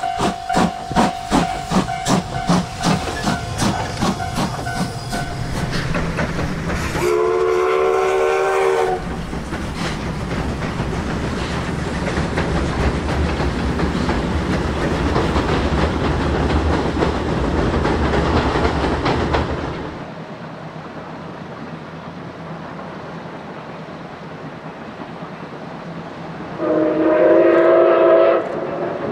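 Steam locomotive working hard, its exhaust beating in even chuffs about twice a second, then a steam whistle blast of about two seconds. The train then runs past with a steady rumble and rush of steam, and near the end a steam whistle sounds another blast of about two seconds.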